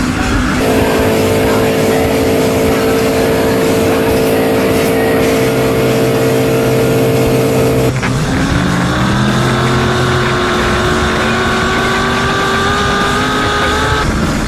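V8 race boat engines at speed, heard from on board. First comes a steady high-revving drone. About eight seconds in it cuts to a second boat's V8 whose pitch rises as it accelerates, then levels off, with a constant rush of water and wind throughout.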